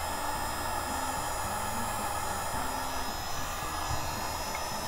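Wagner paint-stripper heat gun running steadily, its fan giving a continuous blowing hiss as it heats Monokote covering film.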